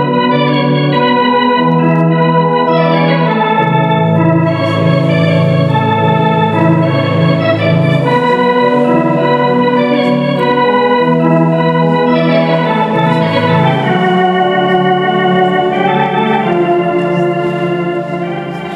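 Organ music: held chords that change every second or two, with no voices, getting quieter near the end.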